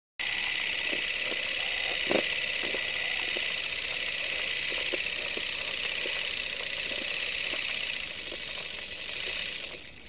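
Old-film countdown leader sound effect: a steady high hiss with scattered clicks and pops of film crackle, one louder pop about two seconds in. It dips near the end and cuts off abruptly.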